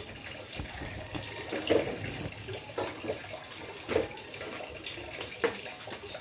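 Water splashing and a scrub brush on a metal tabletop gas stove as it is washed, with a few light knocks as the stove and its burner parts are handled.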